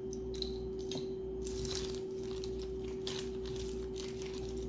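Costume jewelry pieces handled together, with small metallic clinks and rustles coming and going, over a steady low hum.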